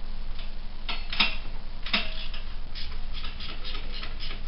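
Ratchet wrench turning a muffler mounting bolt on a motorcycle exhaust: a few sharp metallic clicks about a second in, then a run of quick, even ratchet clicks, about five a second.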